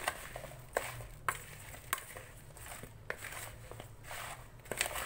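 Chopped raw mango pieces being mixed with salt and ground spices, giving irregular clicks and scraping about every half second to second.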